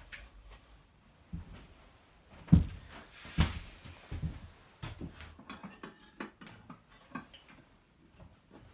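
A series of knocks and light clatter from cookware being handled at a stove, the two loudest knocks about two and a half and three and a half seconds in, followed by smaller ticks and taps.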